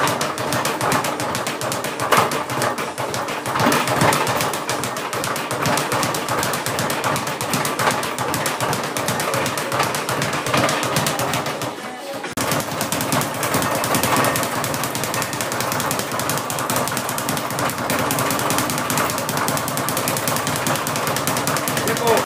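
Speed bag being punched in a fast, continuous rattle, the leather bag drumming against its rebound board, with a brief break about halfway through.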